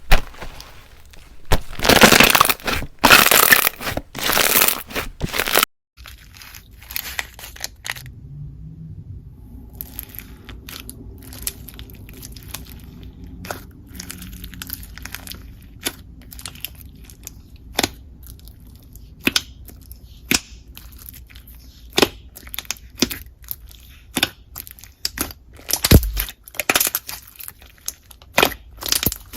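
Slime packed with Perler beads being squeezed and pressed. For the first few seconds it gives loud, dense crunching; then, after a sudden cut, quieter squishing follows, with scattered sharp clicks and pops.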